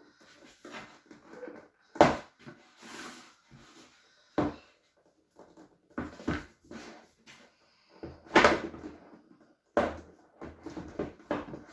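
A cardboard jigsaw puzzle box being opened and its contents handled: irregular knocks, scrapes and rustles, the sharpest about two seconds in and again around eight and a half seconds.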